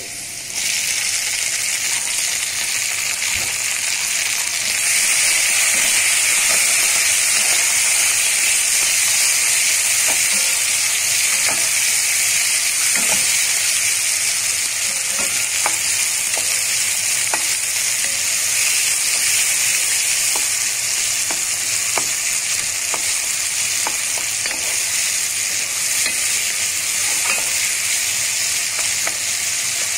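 Sliced tomatoes and chopped onion sizzling in hot oil in a non-stick pot, stirred with a wooden spoon that gives faint taps against the pan. The sizzle jumps up about half a second in and grows louder again about five seconds in.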